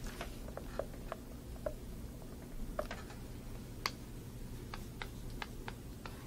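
Chalk being handled and then tapped against a chalkboard while writing: a string of short, irregular clicks. The sharpest click comes just before four seconds in, when the chalk first meets the board, and a quicker run of clicks follows as the number is written.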